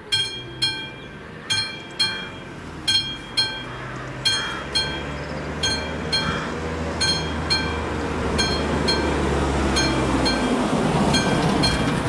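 Level crossing's classic warning bell ringing in pairs of strokes, about one pair every second and a half. Beneath it a train's low engine rumble builds from about four seconds in, and the noise of the train passing grows near the end.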